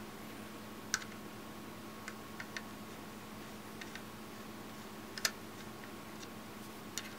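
Sparse, irregular clicks and light taps of a screwdriver and the plastic parts of a knife-sharpening system being handled during assembly, about eight in all, the sharpest about five seconds in.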